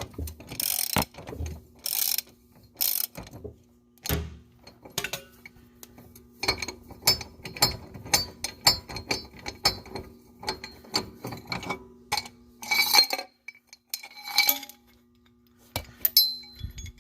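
Socket ratchet driving an inner tie rod removal tool to unscrew an inner tie rod: a few separate strokes, then runs of rapid pawl clicking, and a metallic clink near the end. A steady low hum runs underneath.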